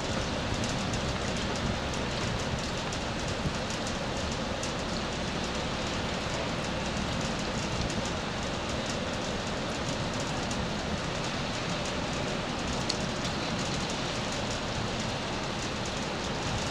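Steady rush of floodwater running into a yard drain, with a fine patter of drops throughout.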